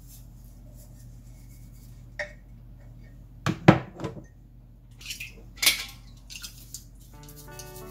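Crockery knocking and clinking in a stainless-steel sink during washing up. There is a loud clatter about halfway through as a ceramic mug is set down, then a few lighter clinks. Background music comes in near the end.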